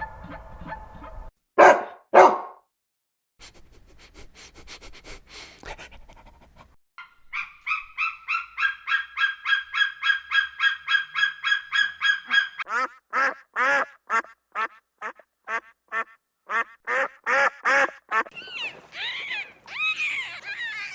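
Geese honking in long runs of rapid, evenly repeated calls, about three to four a second. The honking comes in several short clips that change abruptly, with two single louder calls and a stretch of faint crackle before it.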